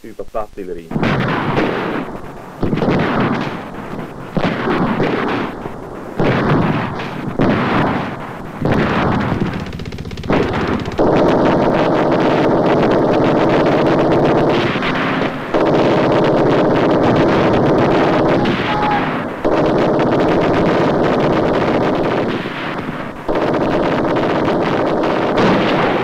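Gunfire and explosions in a night infantry assault. For about the first ten seconds there is a string of separate shots and blasts, each trailing off with echo, then three long, unbroken stretches of continuous fire of a few seconds each.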